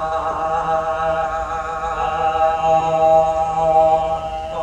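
Sound-poetry vocal chanting: a held, droning vocal sound that wavers only slightly in pitch, heard over a Skype call through the room's speakers.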